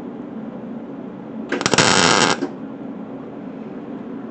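MIG welder striking an arc for a tack weld on a steel steering rod: one crackling burst lasting about a second, starting about a second and a half in.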